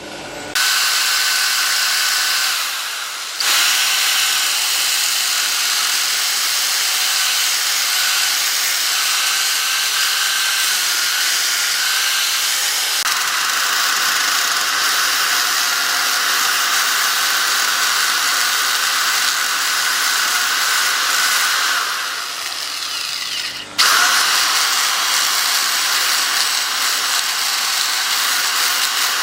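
Hand-held electric power tool running on wood, a steady high whine over a hiss. It eases off briefly twice, about three seconds in and again a little after twenty seconds, then picks back up.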